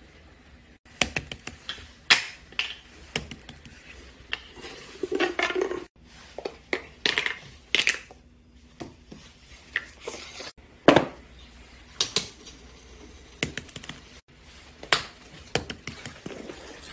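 Small hard plastic objects, most likely fidget toys, handled at close range: irregular sharp clicks, taps and clatter with a few short rustling scrapes.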